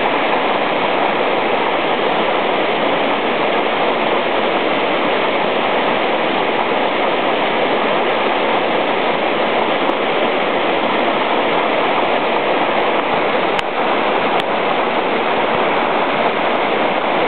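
Steady, loud rush of water from a tall waterfall of about 70 metres, with two brief clicks about three quarters of the way through.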